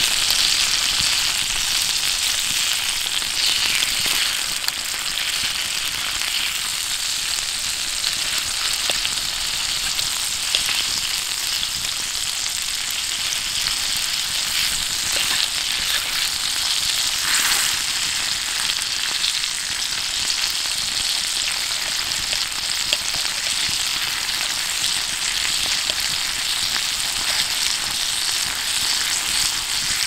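Thick sliced steak sizzling steadily in its fat on a hot iron griddle plate, with a few faint clicks.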